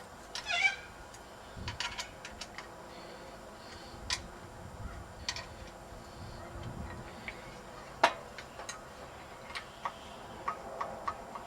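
Scattered light clicks and knocks of plastic fountain parts being handled and fitted together, with one sharper knock about eight seconds in. A brief animal call sounds near the start.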